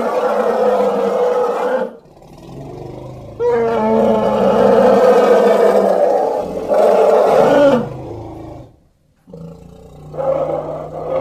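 Elephant trumpeting and roaring in long, loud calls: one for about the first two seconds, a low rumble, then a sustained call of about four seconds, and another starting near the end.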